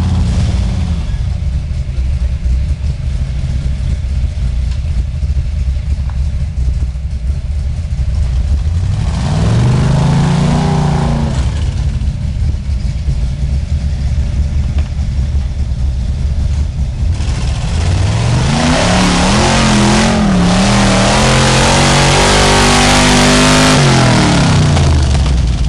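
Off-road rig's engine running at low revs as it climbs, with a brief rev about ten seconds in. Near the end it revs hard for several seconds, pitch rising, wavering and then falling away, while the tires spin and spray dirt.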